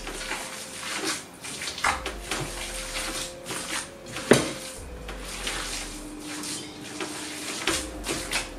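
Hands kneading a food mixture in a glass bowl: irregular squishing and handling sounds with knocks against the glass, the sharpest knock about four seconds in.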